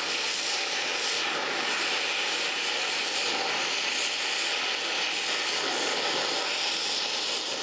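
Gas welding torch flame hissing steadily while bronze rod is brazed into a red-hot broken cast iron casting.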